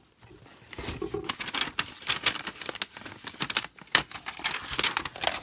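Tissue paper in a cardboard box rustling and crinkling under the hands, with quick irregular crackles and clicks as the sticker sealing it is peeled off. It starts about a second in.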